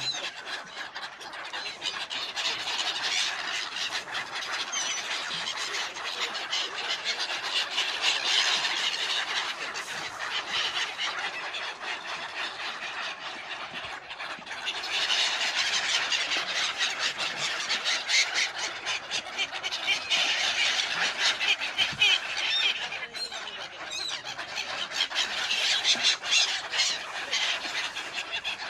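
A large flock of migratory winter birds calling together in a dense, continuous din of high squeals, easing for a moment about halfway through before swelling again.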